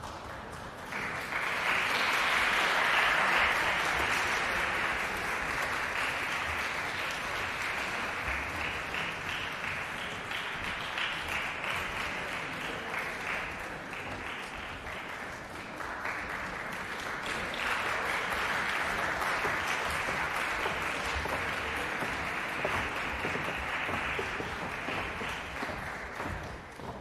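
Audience applauding in a concert hall, starting about a second in, easing off around the middle, then swelling again before fading out near the end.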